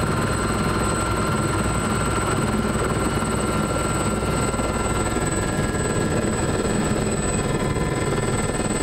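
Aérospatiale Gazelle helicopter's turbine and rotors running steadily in low flight, heard from inside the cabin, with a steady high whine over the noise.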